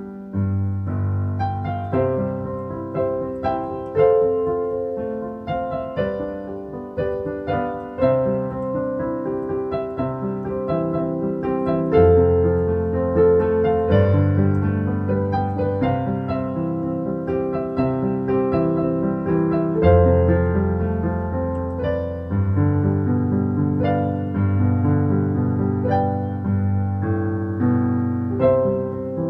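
Solo piano playing a gentle melody over long held bass notes.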